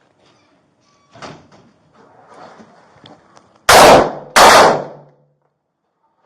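Two gunshots from a police officer's firearm, fired about 0.7 seconds apart, very loud at the microphone, each dying away over about half a second. A much quieter knock comes about a second in.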